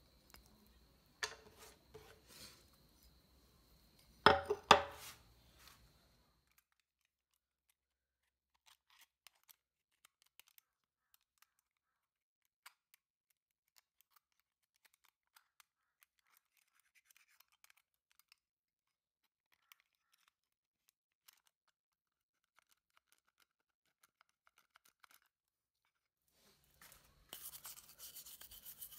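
Hand work on an old horn driver unit: a sharp click about a second in and two loud knocks between four and five seconds, then faint scattered ticks as pliers pick at crusted residue around its screw holes. Near the end, a toothbrush starts scrubbing the driver's finned back steadily.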